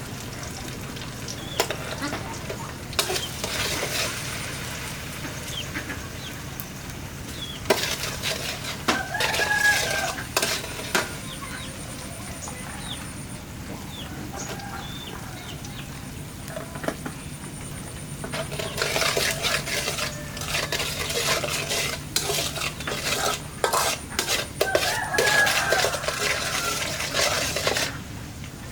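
Food sizzling in a hot pan, with repeated spells of a utensil stirring and scraping against the pan. Chickens call briefly twice in the background.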